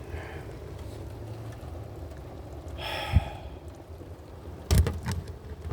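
Heavy rain falling as a steady low rumble, with a single thump about three seconds in and a couple of loud knocks close together near the end.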